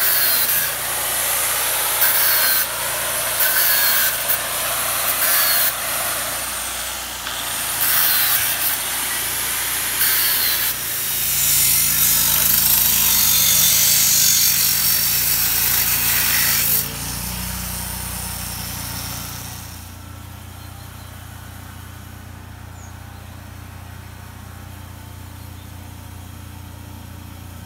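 Rain pattering close to the microphone, loud and even with brief louder spells. It drops sharply about two-thirds of the way through, leaving a quieter steady hiss over a low hum.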